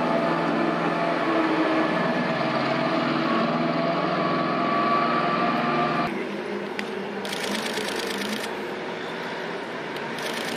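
A motor running with a steady drone of several held tones, cut off abruptly about six seconds in. After it, quieter background noise with two short bursts of high hiss.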